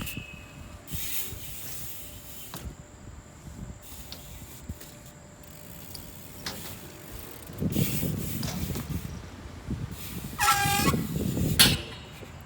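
BMX bike being ridden through a trick line on skatepark obstacles: tyres rumbling over the concrete, knocks from pegs and landings, and near the end a short high squeal followed by a sharp bang.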